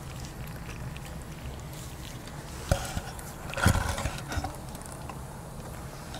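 A kitten eating grilled meat from a skewer, with a sharp knock close by about two and a half seconds in and a short kitten call a second later, over a steady low hum.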